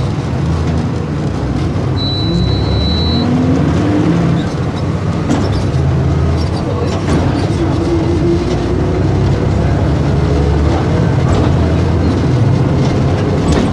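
Diesel engine of a Volkswagen 17.230 EOD city bus running under way, its note rising and falling. A short high beep sounds about two seconds in.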